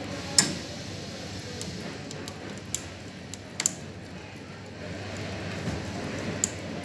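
Sandal bonding (peel) test on a tensile tester pulling the upper away from the sole: a steady low hum with four sharp ticks, the first, about half a second in, the loudest.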